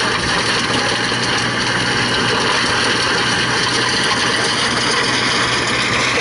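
Tractor engine running steadily under load while a tractor-mounted stone crusher works through stony ground. Together they make a loud, continuous, dense noise.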